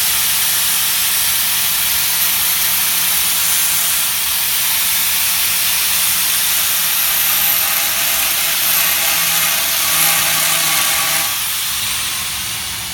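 Electric angle grinder running and grinding under light pressure, a loud steady hiss of the disc on the workpiece, then starting to wind down near the end.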